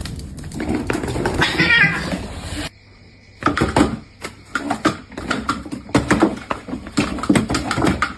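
A cat meowing in a wavering call, then after a short pause a rapid, uneven run of short knocks and scuffles.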